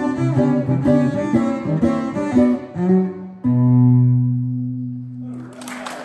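Cello and ten-string bandolim play a quick closing phrase that lands on a long held final note from the bowed cello, swelling and then fading over about two seconds. Applause breaks in just before the end.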